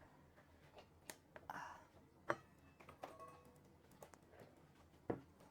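A few light, scattered clicks and knocks of a scoop and measuring cup against a container while flour is measured out, with a brief soft rustle of flour about a second and a half in; otherwise near silence.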